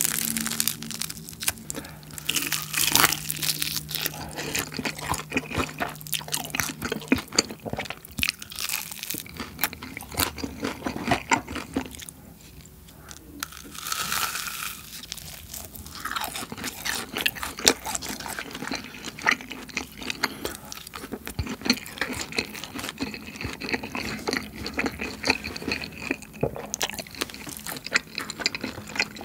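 Close-up crunching and chewing of BHC Bburinkle fried chicken: the seasoned crispy coating breaks under the teeth in many sharp crunches, with a short quieter lull about twelve seconds in.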